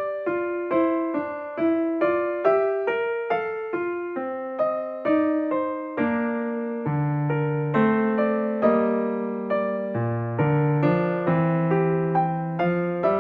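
Background keyboard music: a simple piano-like melody of struck notes that fade, about two to three a second, with lower bass notes joining about halfway through.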